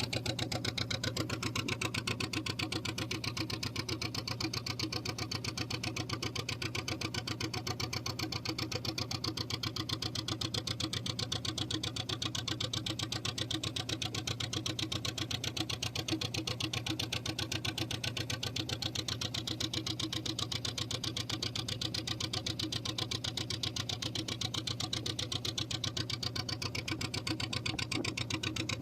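A fishing boat's engine running steadily with a fast, even pulsing beat.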